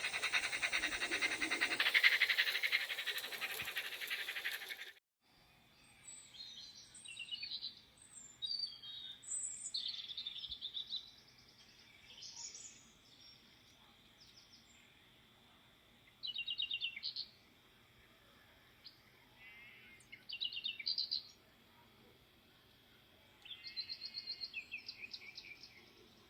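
A loud rushing noise that cuts off abruptly about five seconds in, followed by birds chirping and trilling in short scattered bursts over a faint steady high whine.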